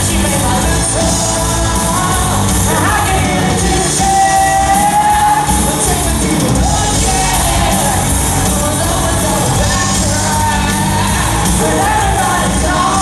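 Live rock band playing: electric guitars, bass guitar and a drum kit, with a young girl singing lead over it.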